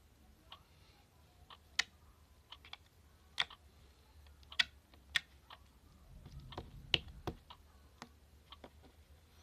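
Homemade slime being squeezed and worked by hand, giving irregular small wet clicks and pops.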